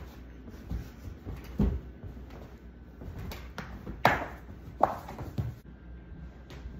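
A string of soft thumps and cushion rustles as a person bounces on and drops onto a padded sofa, about seven in all, the loudest two a little past the middle.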